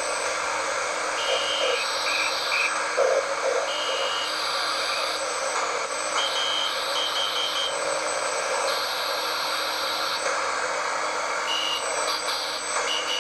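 Shortwave radio static and hiss from a cheap receiver's small speaker, with short high beeps of a Morse code (CW) signal keying on and off at irregular spacing.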